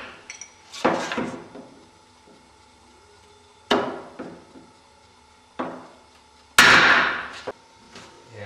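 A wood chisel driven with a hammer, chopping the rounded router-cut notches of a wooden wing rib square: four sharp knocks a couple of seconds apart, the last the loudest, each followed by a few smaller ticks.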